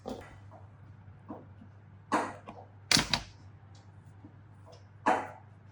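A handful of short, separate knocks and scrapes of tools and metal parts being handled on a workbench, the sharpest a quick double click about three seconds in.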